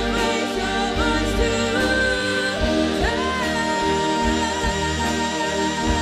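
A female singer sings with a live big band of saxophones and brass. About halfway through she climbs to a long held note over the band.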